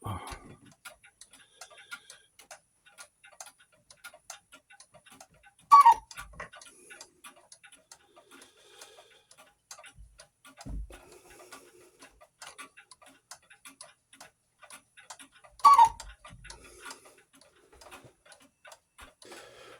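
A one-pinecone West German cuckoo clock's movement ticking steadily. Two sharper, louder clacks come about ten seconds apart, roughly six and sixteen seconds in.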